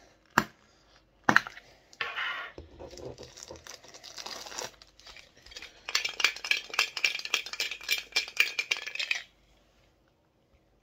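A Funko Soda collectible tin can being opened by hand: two sharp metallic clicks as the pull-tab lid is cracked, a scratchy stretch as the lid is peeled back, then about three seconds of dense rattling and crinkling as the can is shaken to free the bagged figure inside.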